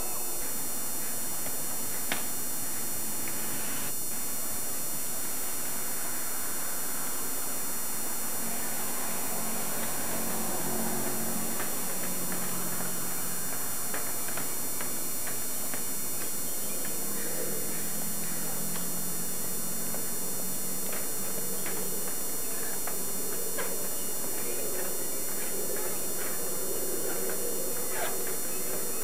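Steady hiss with faint low humming, and a few light clicks scattered through.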